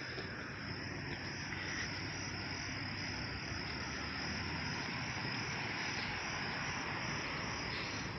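Steady high-pitched chorus of insects shrilling without a break, over a low background rumble.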